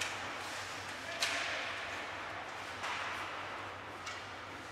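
Ice hockey play on a rink: about four sharp knocks of sticks and puck, the loudest a little over a second in, over steady rink noise.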